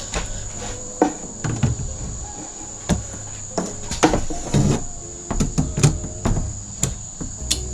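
Irregular knocks and clicks of wooden drawer parts and tools being handled, about a dozen spread through, over a steady high-pitched insect drone and a low hum.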